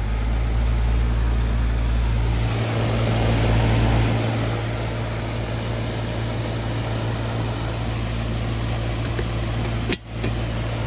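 Outdoor unit of a 2013 GMC 3.5-ton heat pump running in heating mode: a steady low compressor hum under the even rush of the outdoor fan. A brief drop in level about ten seconds in.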